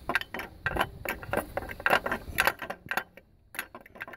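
Irregular metallic clicks and clinks as a small metal pipe with a hose clamp is handled against the belt tensioner bracket of a 3.8-litre Ecotec V6. The clicks come in a busy run, then stop about three seconds in before one last click.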